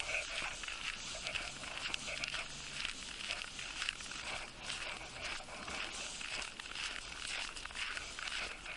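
Footsteps crunching on a thin layer of snow, a continuous crisp crackle of steps.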